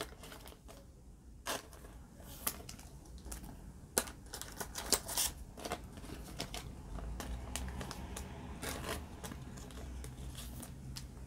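Thin clear plastic card sleeves crinkling as baseball cards are slid into them, with scattered small clicks and crackles of card against plastic.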